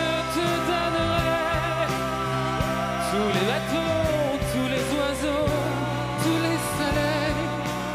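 Live band playing a slow pop song, with keyboard, bass and drums under a long held high note, and a male voice singing.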